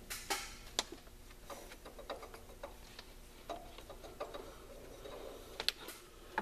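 Light, irregular metallic clicks and taps of a gear puller and pulley parts being handled by hand, about a dozen spread over several seconds, with a sharper pair of clicks near the end.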